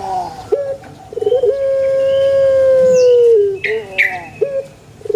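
Puter pelung dove cooing: a long drawn-out coo held at one pitch for about two seconds and dipping at its end, with short coo notes before and after it and another long coo starting near the end. A few brief higher chirps come just before the middle of the second half.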